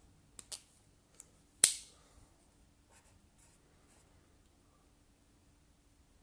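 A few sharp clicks, the loudest about a second and a half in, then the faint scratch of a blue marker writing a short number on paper.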